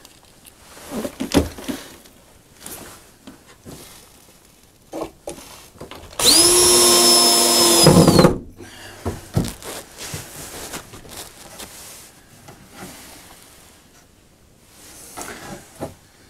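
Cordless drill driving a screw through a metal T bracket into a 2x4. The drill runs for about two seconds with a steady whine, starting around six seconds in, and its pitch drops as it stops. Scattered knocks and clicks of the bracket and wood being handled come before and after.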